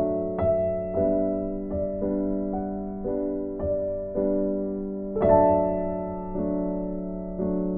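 Background music: slow piano or electric-piano notes that ring out and fade, over a held low note, with a louder chord about five seconds in.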